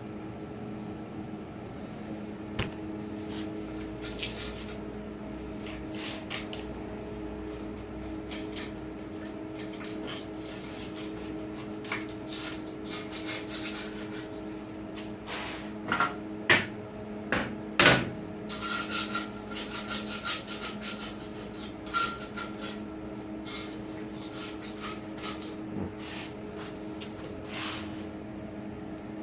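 Putty knife scraping stripper-softened paint off the bandsaw's metal, in intermittent strokes with a few sharp knocks and clatter, the loudest about halfway through. A steady hum runs underneath.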